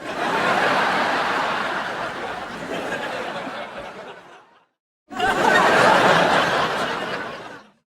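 Canned studio-audience laugh track: a crowd laughing in two bursts, each fading out, with a dead-silent gap of about half a second between them and the second burst cutting in sharply about five seconds in.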